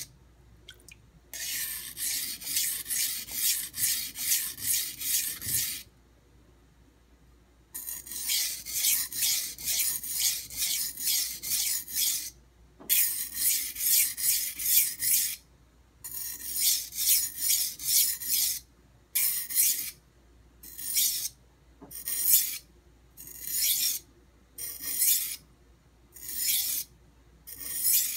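A santoku blade being stroked across a coarse 180-grit Nubatama Ume whetstone, a gritty scraping. The strokes come in fast runs of about three a second with short pauses between, then slow down to single strokes about a second apart in the second half.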